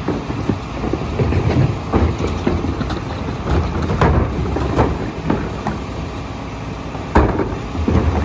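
Rear-loader garbage truck idling while plastic trash carts and a recycling bin are tipped into its hopper: a string of knocks and thumps from the carts banging on the hopper and trash dropping in, the sharpest about seven seconds in.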